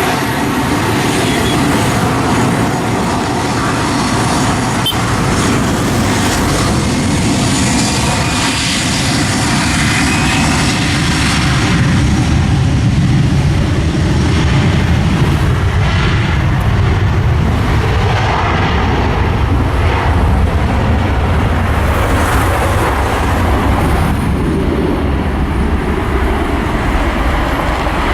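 Jet airliner engines, a loud continuous rumble that swells to its loudest about halfway through and then eases off.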